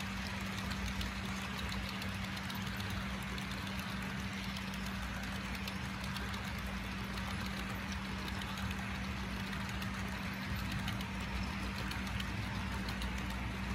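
Model coal train's loaded hopper cars rolling along the layout track: a steady rumble and hum with fine, rapid clicking from the wheels on the rails.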